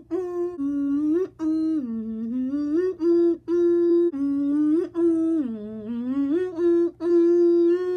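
A person humming a tune without words: a string of notes stepping up and down with short breaks between them, ending on one long held note near the end.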